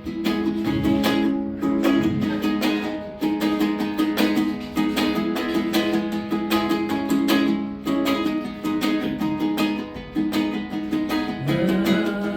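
Ukulele strumming the chords of a song's intro, with a rapid, even strum and a chord change every couple of seconds.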